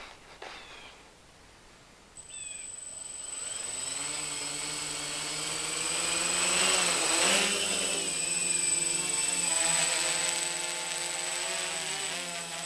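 Mini quadcopter's brushless motors and propellers spinning up and lifting off. A high thin whine starts a couple of seconds in, then the propeller buzz builds and grows louder, wavers in pitch as it takes off, and settles into a steady hum in hover.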